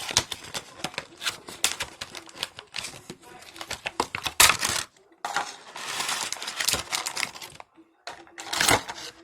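Plastic packaging and containers of a slime kit being handled and opened: a run of sharp clicks and taps, with a stretch of rustling crinkle partway through.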